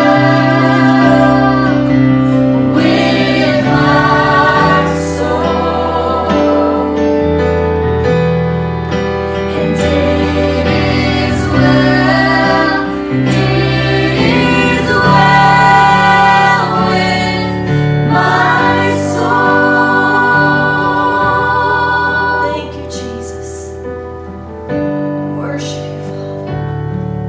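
Worship music: several voices sing long held notes over a band with steady, slowly changing bass notes. The music gets quieter about 22 seconds in.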